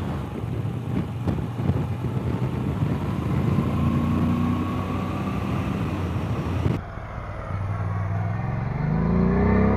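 Moto Guzzi V85 TT's air-cooled transverse V-twin running on the road with wind noise. About seven seconds in, the sound changes abruptly; after that the revs climb as the bike accelerates, loudest near the end.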